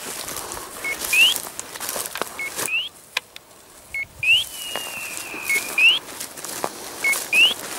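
An electronic beeper collar on a pointing dog repeating its point-mode signal about every one and a half seconds, each a short flat beep followed by a rising chirp, the signal that the dog is standing on point. A longer falling whistle-like tone sounds about halfway through, over footsteps in dry stubble.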